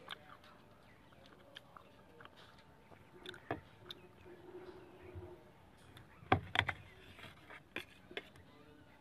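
A knife clicking and scraping on a ceramic plate while boiled pork belly is cut. It gives a few scattered light clicks, then a loud cluster of clinks a little past the middle and a couple more near the end.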